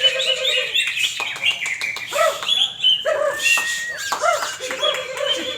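Cucak hijau (greater green leafbirds) singing a fast, varied song of overlapping chirps, trills and whistles, with a held low note near the start and again near the end.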